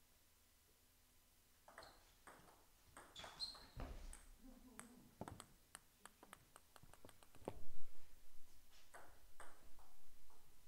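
Table tennis ball clicking off bats and the table in a rally, then a quick run of small ticks as the loose ball bounces away, with a louder dull thump about seven and a half seconds in. A few more light taps follow near the end.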